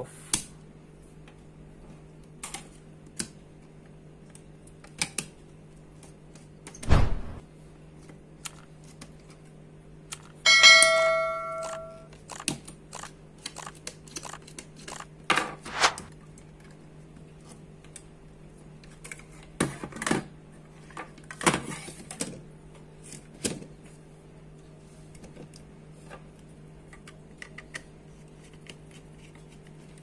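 Scattered clicks, taps and knocks from handling electrical wiring, wall switch plates and a screwdriver on a desk, with a thump about seven seconds in and a brief metallic ring about ten seconds in. A steady low hum sits underneath.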